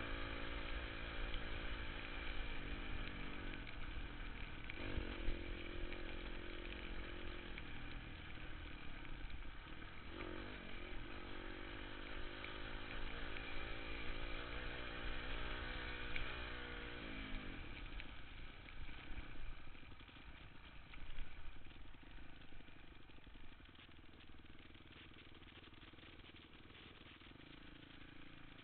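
Off-road motorcycle engine running under riding load, its pitch repeatedly climbing and falling, with a heavy low rumble of wind on the microphone. The engine sound thins out after about 18 seconds and drops lower near the end.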